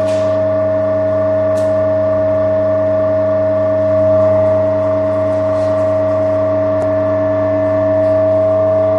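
Hydraulic power unit of a Nowatech ZHCN-315CNC butt fusion welder running: a steady whine with a low hum beneath it, during the heat-soak stage of butt-fusing plastic pipe.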